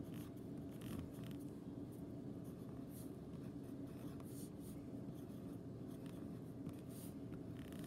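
Paper Mate pen writing numbers on a sheet of paper: a run of short, faint scratching strokes over a low steady hum.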